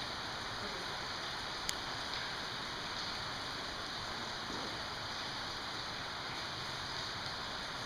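A steady, even hiss that runs unchanged throughout, with one short sharp click about two seconds in.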